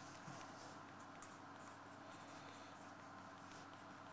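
Near silence: faint room tone with a low steady hum, and the faint scratch of a ballpoint pen writing on paper.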